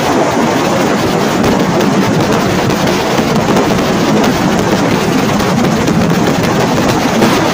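Steady, loud wind rush and buffeting on the microphone from riding a motorbike, with a crackly edge.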